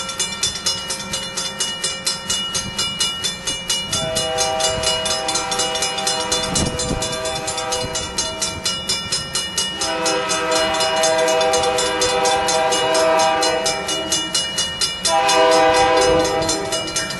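A train horn sounds three blasts, two long and a shorter third, over a steady, rapid clanging that runs throughout. The clanging fits a grade-crossing bell.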